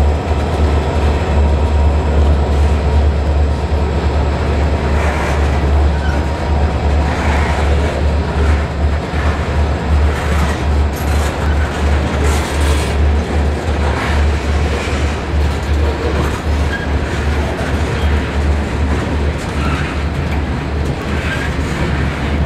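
Freight train's cars (covered hoppers, boxcars and tank cars) rolling past close by: a steady deep rumble with scattered wheel clicks over the rail joints.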